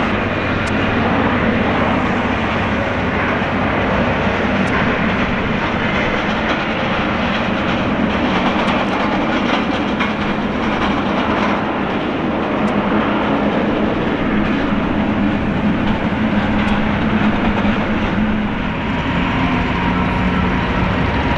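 A Boeing 777-300ER's GE90 turbofan engines running as the airliner taxis onto the runway: a loud, steady jet noise with a low hum underneath.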